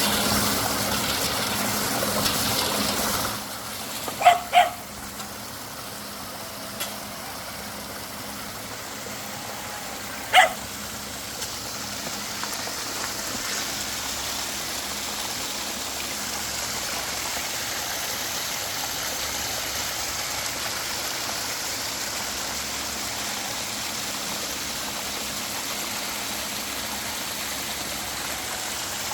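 Steady rush of rain-swollen water pouring over a small waterfall, louder for the first three seconds and then settling lower. A dog barks twice about four seconds in and once more about ten seconds in.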